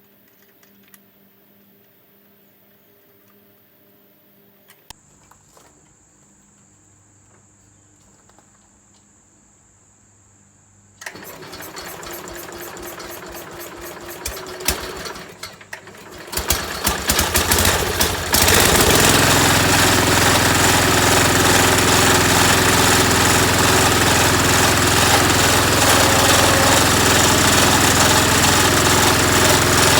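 Tractor engine cranked and started. About eleven seconds in it turns over roughly, catches unevenly a few seconds later, and settles into a steady run.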